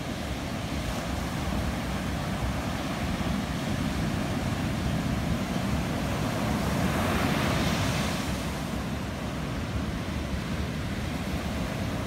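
Ocean surf breaking on a sandy beach: a continuous wash of waves, swelling louder as a wave crashes and rushes up the sand about seven seconds in.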